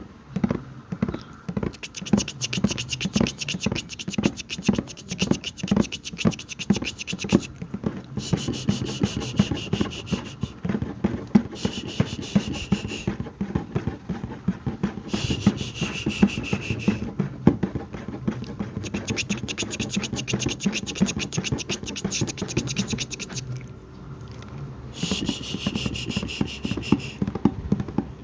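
Close-miked ASMR mouth sounds and a bucket being worked: a continuous run of rapid, crackly clicks and scratches, with a thin high hiss that comes and goes every second or two.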